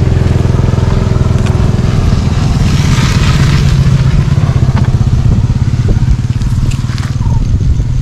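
A small engine idling steadily at an even pace, with a few light clicks over it near the end.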